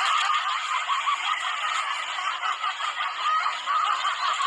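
Laughter that runs on without a break.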